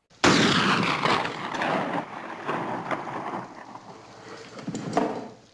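Vehicles arriving outside: a sudden loud rushing of engines and tyres that slowly fades, then swells again briefly near the end.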